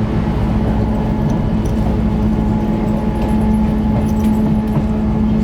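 Diesel train running at a steady pace: a constant engine drone with a few faint clicks from the wheels and track.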